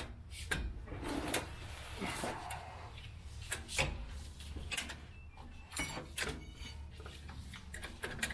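A new parking brake cable being worked and clicked into its fitting under a pickup truck: scattered metallic clicks, knocks and scrapes as the cable end is pushed and seated.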